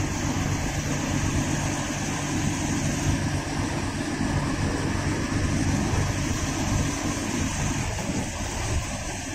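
Bus engine running and road noise heard from inside the driver's cabin of a moving bus at a steady cruising speed, a continuous low hum with tyre and wind hiss.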